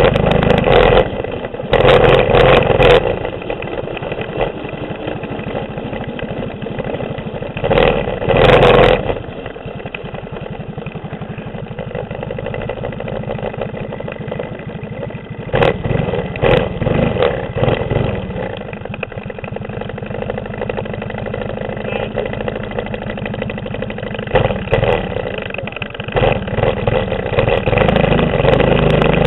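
Mini bike's 6.5 hp clone single-cylinder engine, heard from on the bike: it revs up in short throttle bursts several times, drops back to a steady idle in between, and runs at higher revs again near the end as the bike pulls away.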